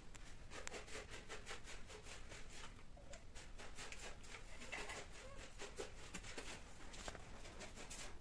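Faint rustling and scratchy scuffing from two mating cats shifting against each other, made up of many quick small scrapes throughout.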